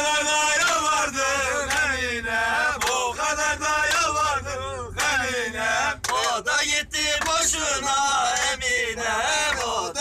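A group of men singing a Turkish village folk song (türkü) together in a loud, chanted chorus.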